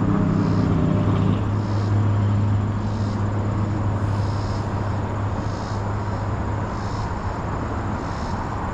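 Electric trolling motor humming steadily, strongest over the first couple of seconds and then easing off. A high, short chirp repeats about once a second over it.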